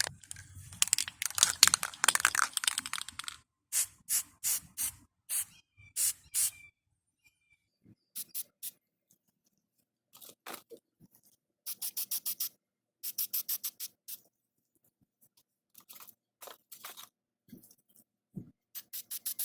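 An aerosol spray-paint can shaken for about three seconds, then sprayed in a series of short hissing bursts with pauses between them.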